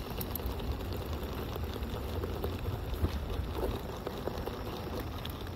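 Halo Rover hoverboard's wheels rolling over a cracked asphalt path: a steady low rumble with scattered small clicks and crackles.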